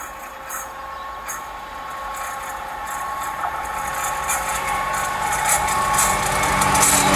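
Freight locomotive hauling container wagons approaching along the track, its engine and the steady high tone of the rails growing steadily louder as it nears.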